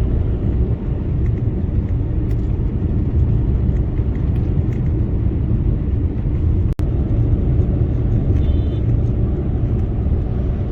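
Steady low road and engine rumble of a moving car, heard from inside the cabin, with a momentary dropout about seven seconds in.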